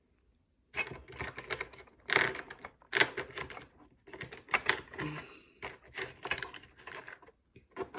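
Small nail drill bits and sanding bits being handled and fitted into their holder: an irregular run of sharp clicks and taps that starts about a second in.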